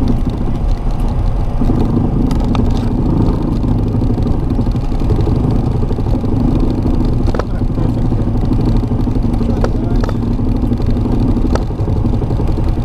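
Boeing 737 flight-deck noise on the landing rollout: a steady loud rumble of the airliner rolling down the runway, with a low hum and a few light sharp clicks.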